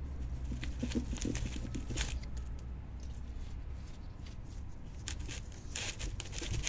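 Desert rose leaves and stems rustling and crinkling as they are handled and pruned with a small knife, in two spells: through the first couple of seconds and again near the end, over a low steady background rumble.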